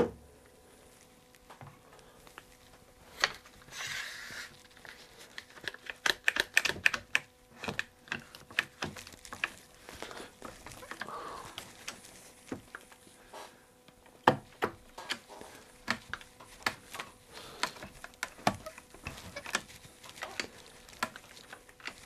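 Irregular clicking and knocking as one-handed trigger bar clamps are set and squeezed tight across a freshly glued chair back. There is a short scrape about four seconds in.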